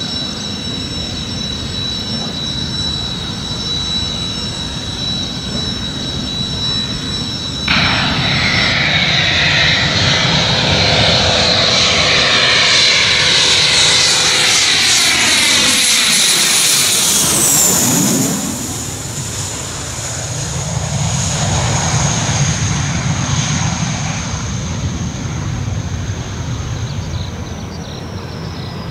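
Kawasaki T-4 jet trainer's twin turbofans: first a steady high whine from a jet idling on the ramp, then, after a sudden jump in level about eight seconds in, a T-4 on approach growing louder and passing low overhead. Its whine drops in pitch as it goes by, at about 17 seconds. The jet noise then eases off into a fading whine.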